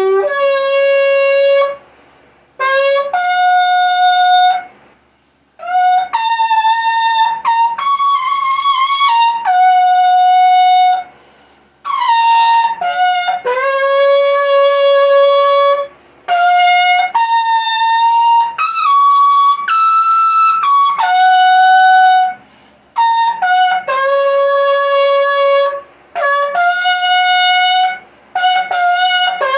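A 95 cm polished horn shofar blown in a run of long held blasts with short breaths between, stepping up and down through several notes of its overtone range, some blasts sliding from one note to the next.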